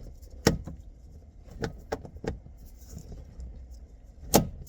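Metal clicks and clunks of a Mazda Miata NA soft top's windshield-header latch being worked by hand, not catching: one sharp clack about half a second in, a few lighter clicks in the middle, and the loudest clack near the end.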